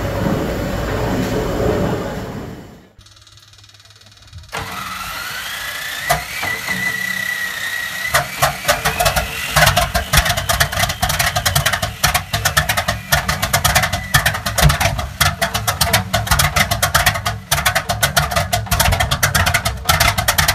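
A large triple-expansion steam pumping engine running, cut off after about two seconds. After a short quiet gap a Bristol Hercules 14-cylinder sleeve-valve radial aircraft engine is started: a starter whine rises, then about eight seconds in the cylinders begin firing in uneven bursts as the engine catches and runs.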